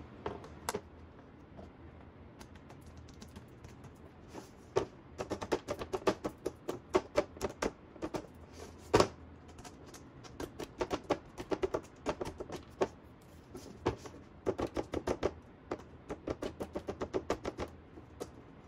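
Small laser-cut pieces being pushed out of the corner slots of an MDF board by hand: runs of quick, light clicks and taps, several a second, with one louder knock about nine seconds in.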